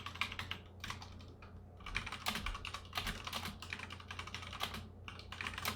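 Typing on a Ducky One 2 full-size mechanical keyboard with Cherry MX Red linear switches: rapid runs of keystroke clacks with short pauses between them.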